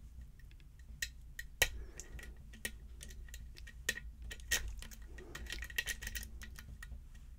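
Lock pick and tension wrench working inside a pin-tumbler challenge lock: irregular light metallic clicks and scrapes, with a quick cluster of clicks near the end.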